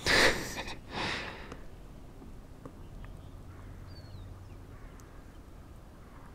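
Two harsh crow caws, one at the very start and a shorter one about a second in, then a faint small bird chirp around four seconds.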